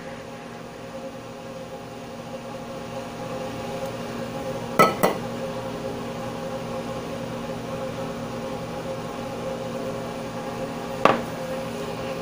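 Steady background hum with two sharp clinks about five seconds in and one more near the end, like a ceramic cup knocking on a hard counter or saucer.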